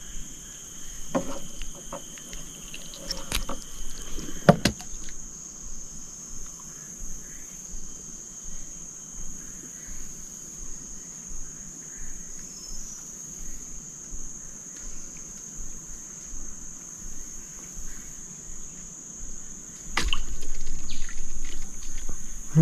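Insects shrilling in a steady high-pitched drone, with a few sharp clicks in the first seconds and a louder burst of noise from about twenty seconds in.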